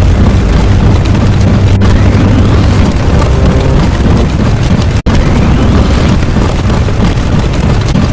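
Very loud, dense stacked sound effects with a heavy low rumble, like layered explosions, that cut out for an instant about five seconds in before carrying on.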